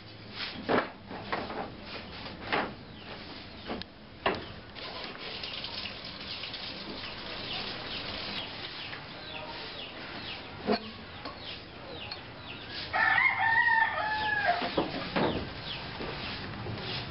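A rooster crows once about 13 seconds in: one call of about a second and a half that holds its pitch, then drops at the end. Short high chirps run throughout, and a few sharp knocks come in the first seconds.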